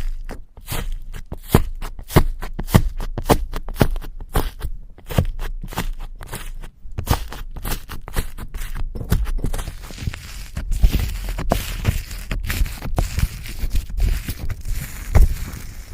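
Slime being squeezed and poked by hand, giving a rapid, irregular run of clicks and pops, several a second. About ten seconds in it turns denser and more crackly.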